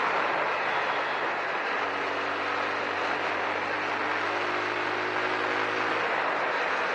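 Wind rushing over the microphone of a TVS Apache RTR 200 4V motorcycle at road speed, ridden in Rainy mode. The single-cylinder engine's steady note shows through from about two seconds in until near the end.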